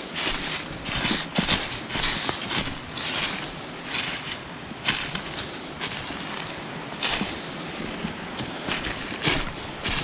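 Footsteps crunching on dry leaf litter and loose stones, a walking pace of irregular steps that come thinner after about four seconds in.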